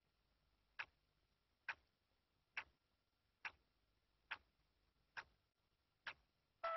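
Ajanta quartz clock ticking: seven sharp, evenly spaced ticks a little under a second apart, with near silence between them. Music comes in at the very end.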